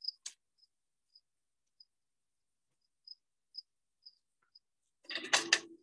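Crickets chirping: short, high chirps spaced roughly half a second apart. A brief, loud burst of noise about five seconds in stands out above them.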